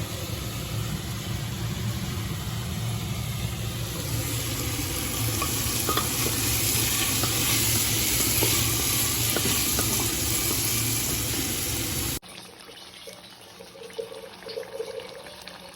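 Food sizzling as it fries in a hot pan: a loud, steady sizzle with faint crackles, which cuts off suddenly about twelve seconds in, leaving quieter clinks and faint kitchen sounds.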